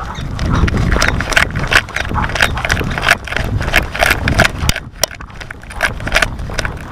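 Hurried footsteps and knocking of a body-worn camera, with a low wind rumble on the microphone, as a leashed dog drags her walker along; the rumble drops away a little past halfway, leaving scattered knocks.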